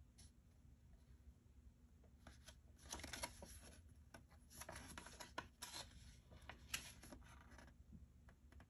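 Soft paper rustling and crackling as a folded instruction leaflet is unfolded and handled, a cluster of crinkles from about two seconds in until shortly before the end.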